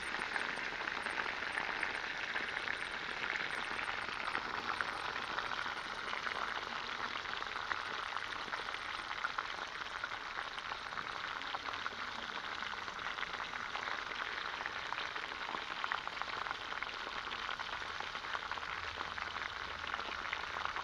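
Pork frying in hot oil in a pan: a steady, dense crackling sizzle that stops abruptly at the end.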